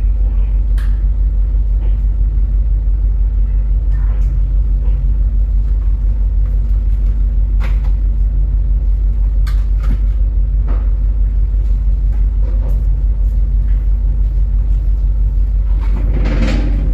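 Steady, loud low rumble of ship's machinery with a constant hum and a few faint clicks.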